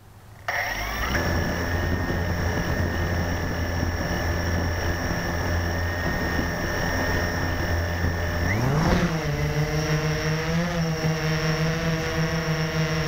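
Blade 350 QX quadcopter's four brushless motors and propellers, heard close-up from a camera mounted on the quad. They start spinning at a low steady speed with a thin whine, then rise in pitch about eight and a half seconds in as the throttle comes up for lift-off, and hold the higher speed.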